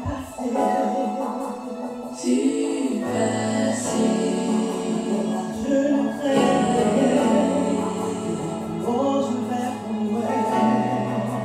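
A woman singing a slow gospel song into a microphone, her voice gliding and holding long notes, with accompaniment that adds steady low notes from about three seconds in.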